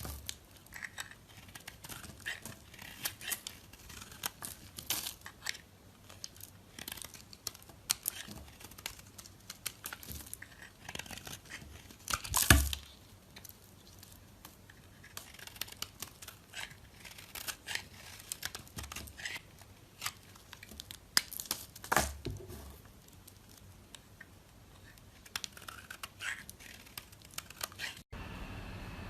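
A knife cutting dry bar soap: crisp, crackling scrapes and snaps in quick irregular strokes, with two louder cracks about halfway through and again about three quarters of the way in.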